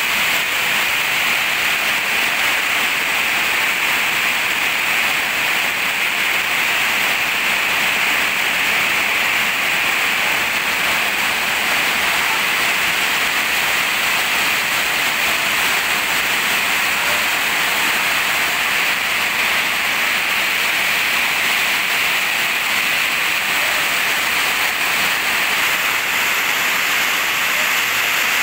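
Heavy rain falling steadily on a metal roof, an even hiss at a constant level throughout.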